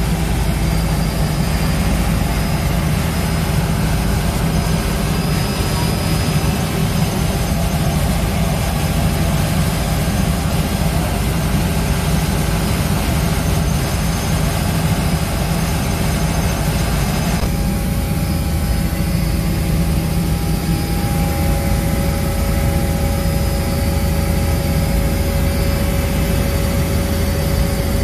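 Helicopter engine and rotor noise heard inside the cabin in flight, a loud, steady drone. Its tone shifts slightly a little past halfway through.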